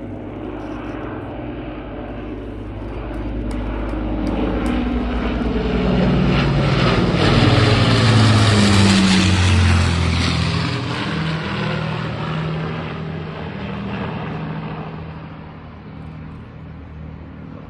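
Avro Lancaster bomber's four Rolls-Royce Merlin piston engines in a low flypast: the engine drone grows to its loudest about eight seconds in, drops in pitch as the aircraft passes, then fades away.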